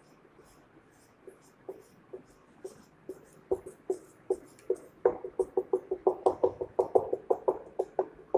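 Whiteboard marker squeaking against the board in a run of short strokes, sparse at first and then about four a second from about five seconds in.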